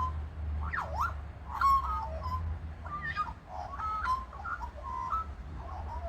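Australian magpie warbling: a run of short whistled notes and pitch glides, one swooping down and back up about a second in.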